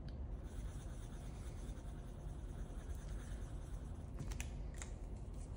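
Faint scratching of a pen writing on paper, with a few soft clicks near the end.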